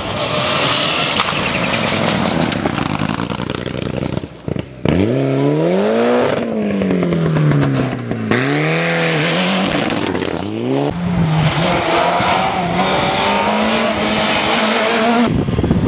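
Rally car engine at full race pace, revs rising and falling in quick sweeps as it shifts up and down through the gears, then held high as it accelerates away. The sound breaks off abruptly a couple of times.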